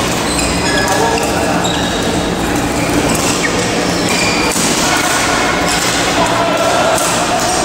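Badminton play across several courts: rackets hitting shuttlecocks with short sharp pops, and shoes squeaking briefly on the court mats, echoing in a large hall over a constant murmur of players' voices.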